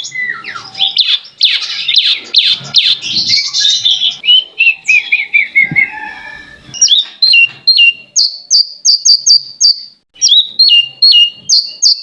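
Songbird singing a fast, varied song: dense rapid chattering, then a falling run of notes, then a sharp sweeping chirp repeated several times a second, with a brief pause near the end.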